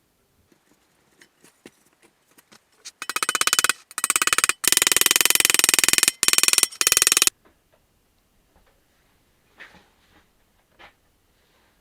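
A loud, rapid rattling buzz in about four bursts over some four seconds, with light clicks and knocks of handling before and after.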